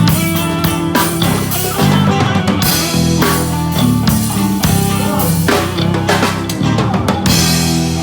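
Rock band playing an instrumental passage: electric guitar and bass over a drum kit keeping a steady beat.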